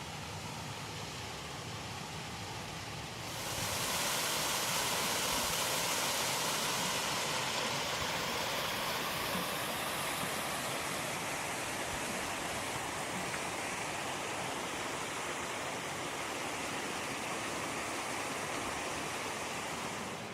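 Steady rush of flowing water. It gets louder and brighter about three seconds in, then holds.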